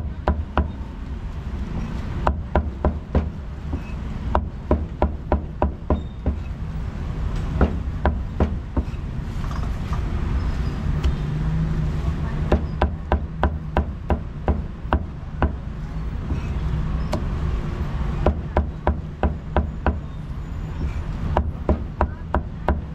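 Cleaver chopping meat on a wooden chopping block, in quick runs of several sharp strokes with short pauses between, over a steady low rumble of street noise.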